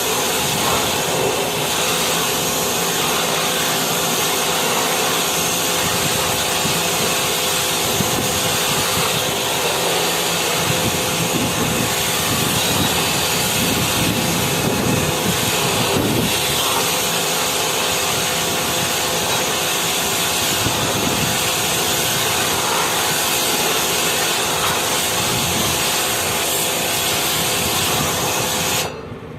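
A motor-driven machine running steadily, a rushing hiss over a hum, cutting off suddenly near the end.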